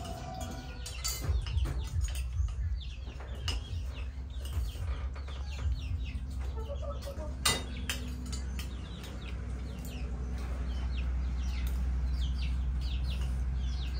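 Chickens peeping over and over in short, high, falling calls, with scattered clicks and clinks like kitchen utensils and one sharper knock about halfway through. A steady low rumble underlies it and grows a little louder in the second half.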